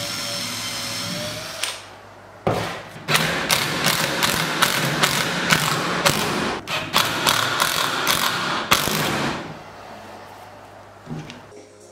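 A cordless drill runs steadily for under two seconds. Then a Makita cordless impact driver drives screws through the vice jaw into its facing, hammering rapidly in several bursts for about seven seconds before it stops.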